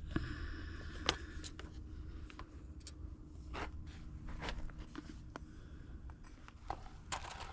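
Food prep at a cutting board: scattered light clicks and short scrapes of a knife and utensils, with a brief rustle near the start.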